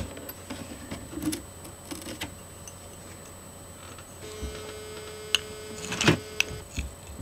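Handling noise from a sulfur sample and a glass plate being moved over a plastic tray. It opens with one sharp click, followed by scattered small taps and knocks. Midway, a faint steady tone sounds for about two seconds.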